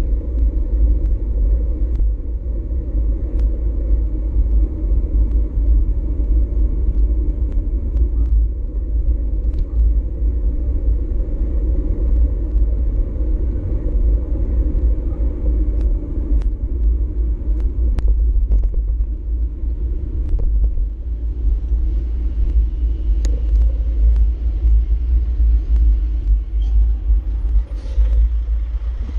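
Steady wind rumble buffeting an action camera's microphone on a moving bicycle, with scattered small clicks through it.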